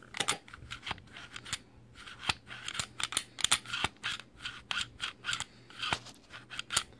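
Glock 26 pistol's slide and trigger being worked by hand over and over: a string of sharp metal clicks with sliding rasps in between, and no squeak, the action freshly lubricated with FrogLube.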